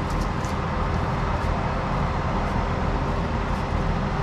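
An engine running steadily at a constant speed: a low, even drone with a faint steady hum, from the heavy tree-work machinery on site.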